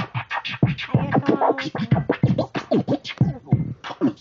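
Record scratching from a DJ app's virtual turntable on a touchscreen tablet: quick back-and-forth scratch strokes, several a second, over music.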